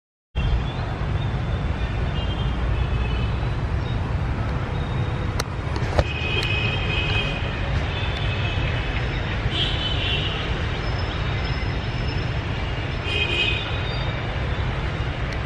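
Busy street traffic: a steady low rumble of passing motorbikes and cars, with vehicle horns beeping several times. A couple of sharp clicks about five and six seconds in.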